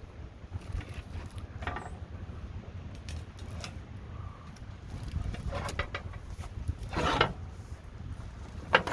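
Scattered metallic clanks and scrapes from handling food and hardware on a barbecue smoker, with the loudest scraping cluster about seven seconds in and a sharp click near the end, over a steady low rumble.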